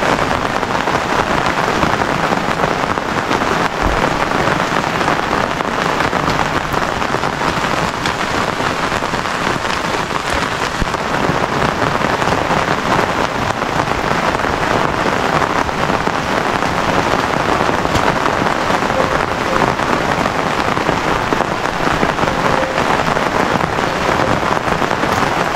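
Steady rain falling on a surface, an even patter of many drops that keeps the same level throughout.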